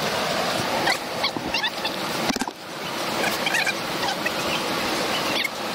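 Rushing river whitewater splashing against the bow of a plastic kayak, heard close through a bow-mounted camera, dipping briefly about halfway through. Clusters of short, high chirping notes come and go several times over the water noise.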